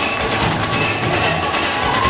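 Tamil fusion dance music playing.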